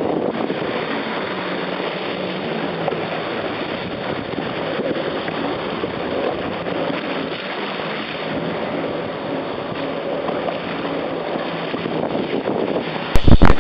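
Wind and water rushing over the microphone of a Yamaha WaveRunner running through ocean chop, with the watercraft's engine hum faint underneath. Near the end come a few very loud, distorted thumps as the ski slams into a wave and spray hits the camera.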